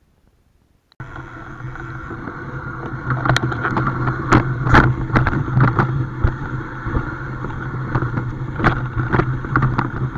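Boat engine running steadily, with wind buffeting the microphone and scattered knocks; it starts abruptly about a second in.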